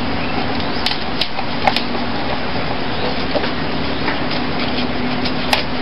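Knife scraping scales off a milkfish over a steel sink, with a few sharp clicks, over a steady loud noise.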